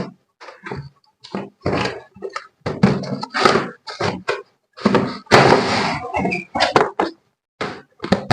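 A series of short thuds and knocks with silent gaps between them, and a longer noisy burst about five seconds in.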